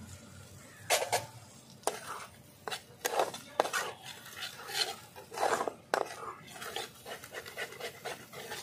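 Flat steel spatula scraping and clattering against a kadai as a thick, drying fish-and-spice mash is stir-fried, in quick irregular strokes starting about a second in.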